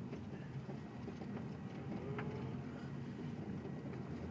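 Steady engine and road noise inside a moving car's cabin, a low even rumble.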